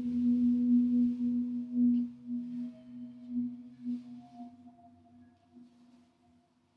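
A singing bowl ringing and slowly dying away. Its low tone wobbles in a slow pulse and fainter higher tones sound above it. It marks the end of the held pose.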